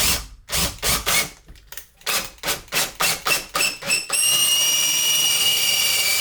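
Power drill boring out a hole in a 3D-printed plastic sword part. It is first run in rapid short pulses, about four or five a second, then held on from about four seconds in with a steady high whine.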